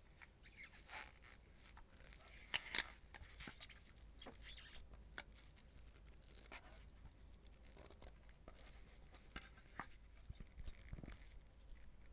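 Gloved hands handling things close to the microphone: scattered crinkles, rustles and light taps, with a couple of sharper clicks about two and a half seconds in.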